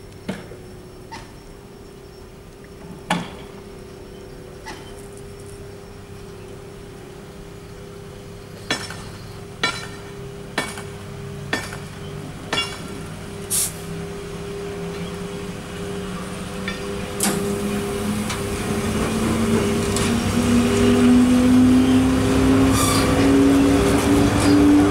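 EP1M electric locomotive pulling a passenger train away from a standstill. A steady electric hum is joined by a whine that rises in pitch as the train gathers speed, growing louder as it comes close. A run of sharp metallic clanks comes about a second apart around the middle.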